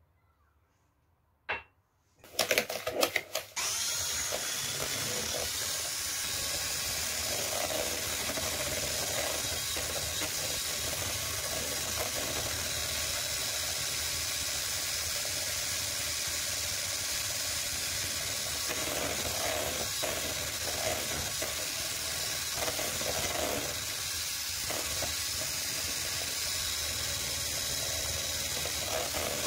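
A knock about a second and a half in, then a handheld electric blender starts in a couple of short bursts and runs steadily, whisking eggs and sugar in a plastic bowl.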